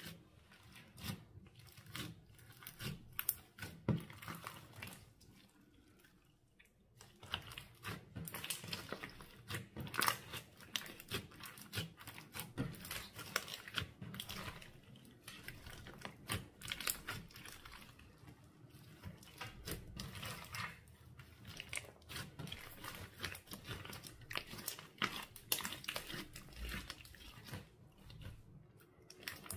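Clear slime being squished and worked by hand, giving a dense run of sticky pops and crackles, with a brief lull about six seconds in.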